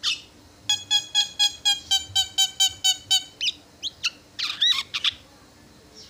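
Javan myna (jalak kebo) calling. It gives a fast run of about a dozen evenly repeated clear notes, about five a second, then a few short calls that sweep and bend in pitch.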